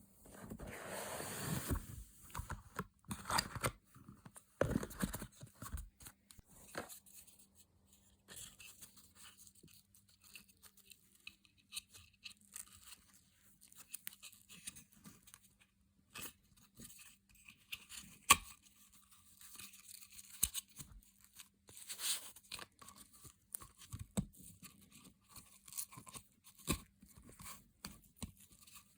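Product packaging being torn open and handled: a tearing noise in the first two seconds, then scattered rustles, crackles and clicks.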